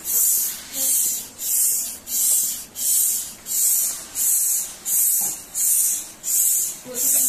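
Hand air pump worked in steady strokes to inflate a balloon: a rush of air hissing out with each stroke, about three strokes every two seconds.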